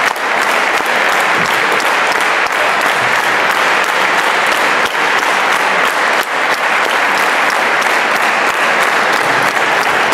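Large audience applauding, a steady dense clapping without pause.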